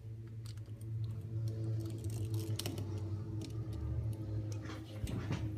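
Scattered light clicks and ticks of a small PH000 Phillips screwdriver and tiny screws working against a smartphone's internal frame, over a steady low hum.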